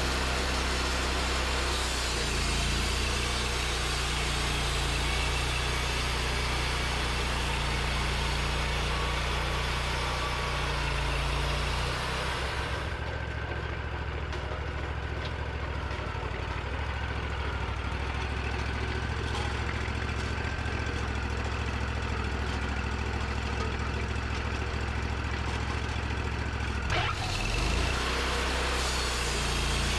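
Portable sawmill's engine running steadily while milling white pine logs. About 13 seconds in the higher hiss falls away, leaving mostly the low engine note, and it comes back with a brief knock near the end.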